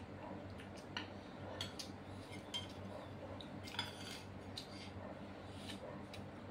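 Metal spoons clinking and scraping on ceramic plates and a plastic serving dish during a meal: a scatter of light, irregular clinks, one sharper one about four seconds in, over a low steady hum.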